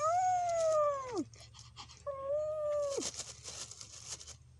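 A puppy whining in two long cries, the first about a second long and the second a little shorter. Each rises at the start, holds, then drops away at the end. A crackly rustle follows shortly before the end.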